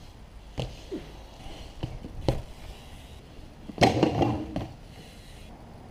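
BMX bike riding and landing on concrete skatepark ramps: a few sharp knocks of tyres and frame hitting the concrete, then a louder, longer clatter about four seconds in.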